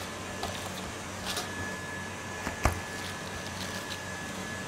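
Steady background machine hum, with light rustles and taps as a block of butter is unwrapped from its paper and cut with a knife, and one sharp knock about two and a half seconds in.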